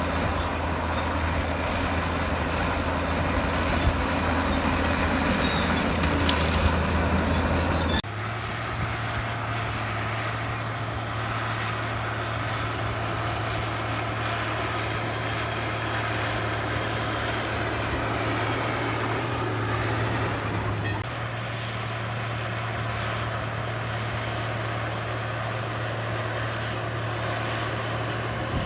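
Heavy diesel engine of earthmoving machinery running steadily under work. The engine note jumps abruptly about eight seconds in and shifts again near twenty-one seconds.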